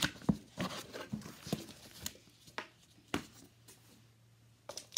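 Cardboard box and paper packaging being handled while a microphone is unboxed: rustling with sharp taps and knocks, busiest in the first two seconds, a few separate knocks around the middle, then a short rustle near the end.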